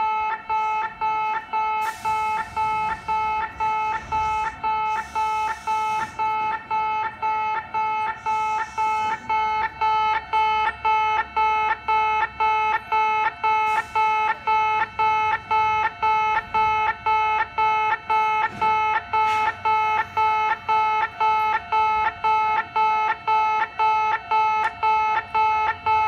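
Railway level-crossing alarm of a Kintetsu in-station crossing, played through a horn loudspeaker: a distinctive chime-like warning tone repeating steadily about twice a second. A few short bursts of hiss and a low rumble sound under it in the first ten seconds or so.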